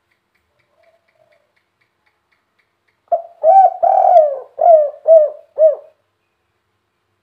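Spotted dove (tekukur) singing one cooing phrase about three seconds in: a short note, two longer drawn coos, then three short even coos at the end. This is the 'kuk 3' song type, with three final notes, that Indonesian dove keepers prize.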